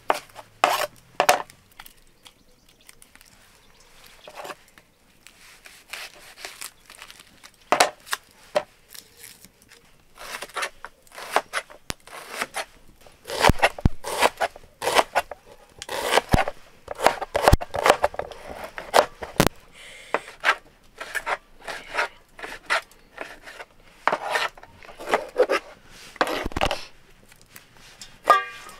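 Large kitchen knife slicing a red onion on a plastic cutting board: irregular sharp knocks of the blade on the board, sparse at first and coming thick and fast in the middle, with a tomato being cut near the end.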